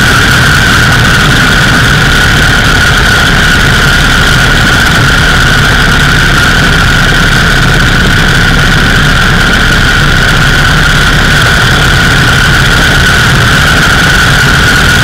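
Indian 101 Scout's side-valve V-twin engine running at a steady cruise on the move, with a constant high whine over the low rumble.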